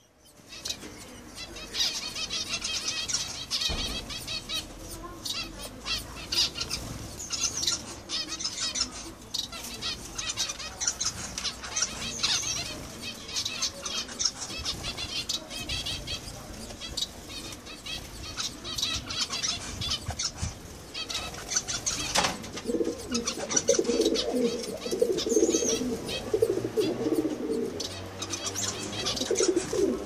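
A mixed aviary of small finches and canaries (Gouldian finches, society finches, zebra finches) chirping and calling continuously, with wing flutters. A sharp knock comes about two-thirds of the way through, and after it a lower, repeated call joins the high chirps almost to the end.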